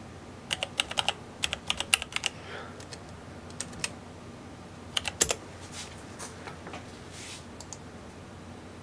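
Typing on a computer keyboard: a quick run of keystrokes, then a few scattered key presses.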